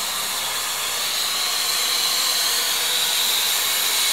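Steady high hiss of steam escaping from a standing steam locomotive.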